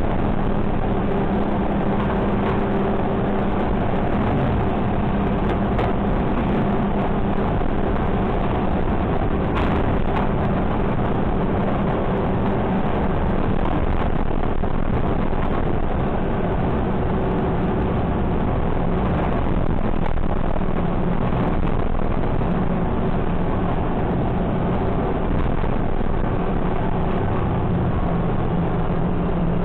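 Automated side-loader garbage truck driving along, its engine running with a steady low hum and road noise, with a few light knocks from the truck body.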